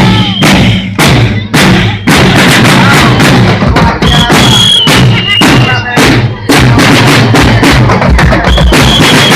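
Parade drum band playing loudly: bass and snare drums beating a steady, fast rhythm, with a short high piercing tone heard near the start, again about four seconds in, and near the end.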